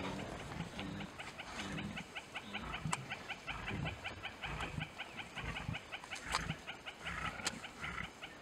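Lions feeding at a carcass: chewing and tearing at meat with low growls and a few sharp cracks. Behind them runs a rapid, steady ticking call at about seven ticks a second.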